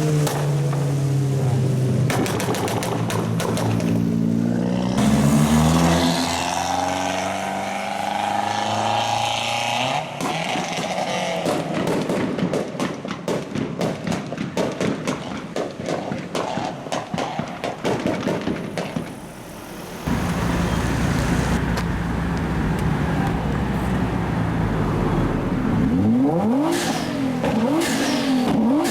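Tuned performance car engines revving hard, with a long run of rapid exhaust pops and crackles in the middle lasting about nine seconds. Near the end a car runs low and steady, then revs up again.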